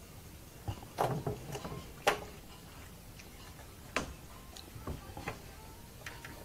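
A handful of sharp, scattered clicks and knocks from fishing tackle being handled, a spinning rod and reel worked by hand, with the loudest near the start and one more a little past the middle.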